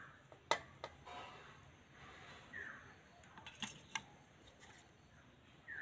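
Light clicks and knocks as dough rounds and utensils are handled on a wooden rolling board beside a steel plate, the sharpest about half a second in and a cluster near four seconds. A faint short falling chirp sounds twice in the background.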